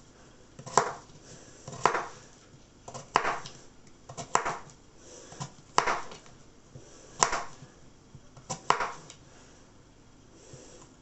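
Kitchen knife chopping vegetables on a chopping board: slow, separate chops about one every second and a bit, some doubled, stopping about nine seconds in.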